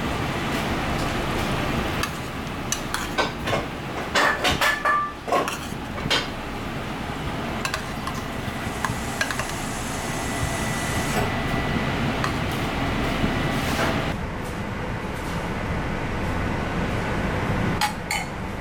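Plate and utensils clinking and tapping against a stainless-steel counter as a dish is plated, in a cluster of sharp clinks a few seconds in and a couple more near the end, over a steady background hum.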